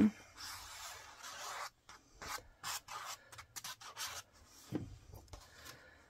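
Glue stick rubbed over a cardstock panel in a run of short scratchy strokes.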